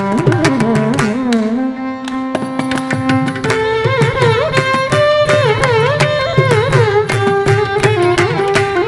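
Carnatic ensemble playing a swarajati in raga Bhairavi in mishra chapu tala. Violins carry the melody with sliding, oscillating ornaments over a dense stream of mridangam strokes, with kanjira and ghatam. The strokes thin out briefly about two seconds in, then pick up again.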